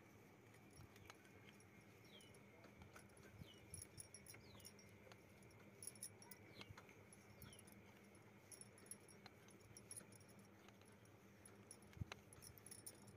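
Near silence, with faint scattered ticks and rustles as wool yarn is wound around the nails of a wooden ring loom.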